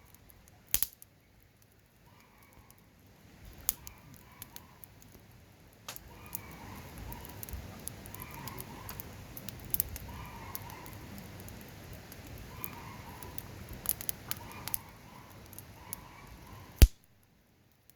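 Wood campfire crackling, with sharp irregular pops and one loud pop near the end. A low rumble joins about six seconds in.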